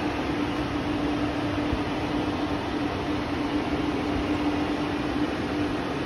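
A steady mechanical whirring hum with one constant tone, from the engine bay of a 2009 Nissan Altima that has power but will not start.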